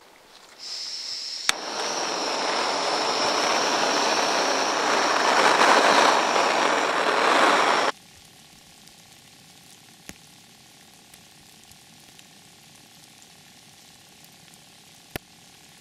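Handheld gas torch on a gas canister: gas hisses out with a thin whistle, a click comes about a second and a half in, and then the torch burns with a loud, steady hiss that swells and cuts off suddenly about halfway through. After that there is only a faint hiss with a few light ticks.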